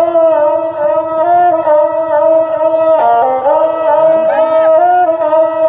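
Ravanahatha, a Rajasthani bowed fiddle with horsehair strings and a coconut-shell body covered in goatskin, being bowed in a continuous folk melody: held notes joined by slides up and down.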